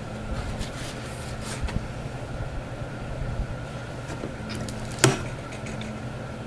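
A soap loaf being handled in a wooden wire soap cutter: light scrapes and taps as it slides along the guide, and one sharp click about five seconds in, over a steady low hum.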